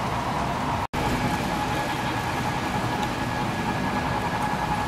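Steady running noise of HO-scale model trains in a busy exhibition hall, with a faint continuous whine. The sound drops out for an instant about a second in.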